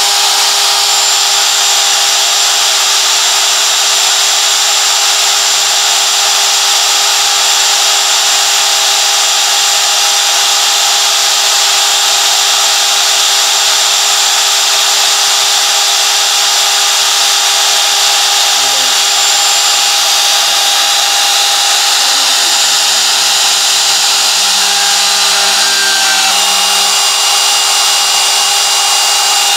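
CNC router spindle running and cutting: a steady loud high whine over a hiss, with brief lower tones shifting about 25 seconds in.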